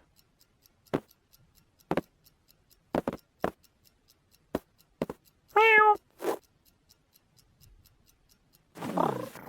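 Domestic cat meowing: one short, loud meow a little past halfway and another starting near the end, with scattered short knocks and taps in between.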